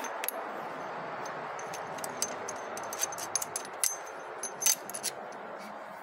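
Metal tools and fittings clinking and jingling as they are handled, a string of sharp clinks, the loudest about two-thirds of the way through, over a steady background hiss.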